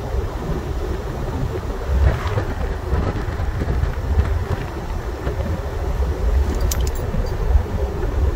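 Wind rushing and buffeting the microphone at the open window of a moving truck, with a fluctuating low rumble from the air and road. A few light clicks come near the end.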